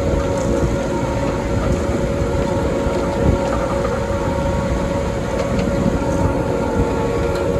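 Large diesel farm machine running steadily: a continuous low rumble with a held whine over it.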